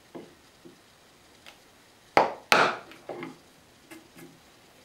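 Chisel knocking into a small block of wood clamped on the bench: two sharp wooden knocks about a third of a second apart a little over two seconds in, then a few lighter taps.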